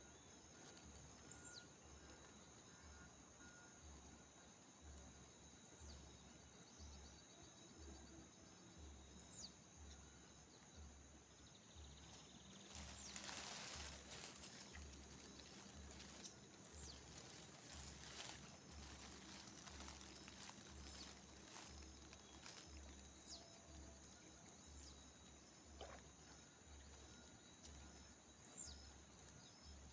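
Faint outdoor ambience of insects trilling steadily, over a low pulsing that repeats about once a second. A brief rush of noise comes about thirteen seconds in.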